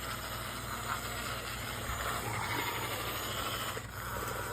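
Remote-control toy excavator running its one-click demo: a steady mechanical running sound with a low hum and light rattle as the arm and bucket move.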